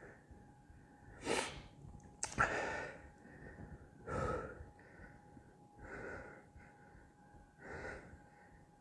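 A man breathing hard through a side plank hold: forceful exhales about every two seconds, the loudest about two and a half seconds in, over a faint steady hum.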